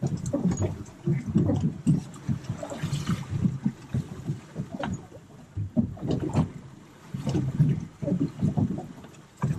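Water sloshing and splashing beside a boat as a hooked mutton snapper thrashes at the surface, a few sharp splashes standing out, over a gusty rumble of wind on the microphone.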